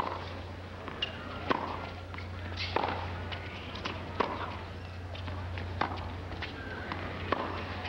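Tennis ball struck back and forth in a rally on a hard court: crisp racket hits about every second and a half, with fainter ball bounces between them, over a steady low hum.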